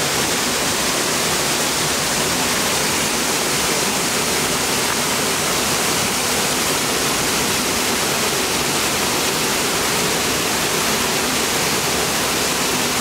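Steady rush of water at a river waterfall: an even, unbroken hiss.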